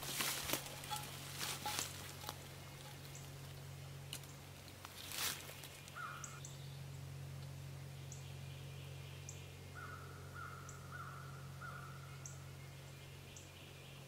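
Footsteps rustling in dry leaf litter and brush in the first couple of seconds, with one more rustle about five seconds in. Then birds calling: a short call about six seconds in and a run of four quick, evenly repeated calls about ten seconds in, with faint high chirps scattered between.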